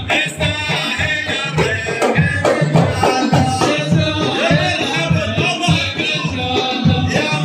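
Large hand-beaten frame drums keep a steady rhythm under men singing together: traditional Gulf Arabic wedding music.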